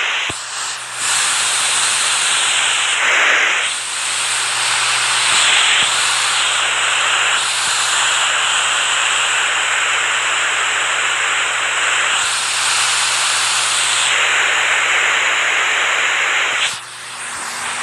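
Rushing water: a steady, dense hiss, dipping briefly about three and a half seconds in and again near the end.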